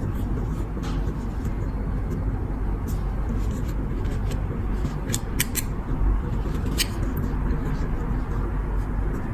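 A few sharp light clicks and taps, scattered singly and in a quick pair about five seconds in, over a steady low rumble.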